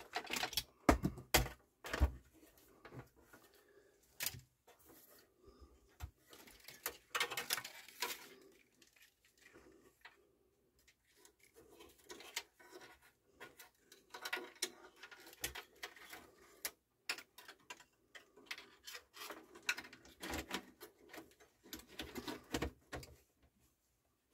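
Irregular clicks, knocks and light rattles as a CD changer's faceplate is handled and pressed onto its metal chassis, parts catching and tapping against each other, with a quieter pause partway through.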